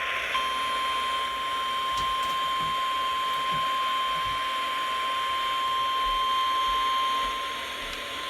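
NOAA Weather Radio's 1050 Hz warning alarm tone: one long, steady single-pitch beep over radio static hiss, with a split-second dropout just after it starts. It is the signal that a new weather warning is about to be read.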